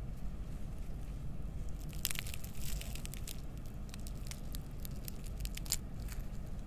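A crisp fried, batter-coated gabin cracker with a soft tape filling being torn apart by hand. Its crust crackles and crunches in a quick run of small snaps from about two seconds in until near the end, over a low steady rumble.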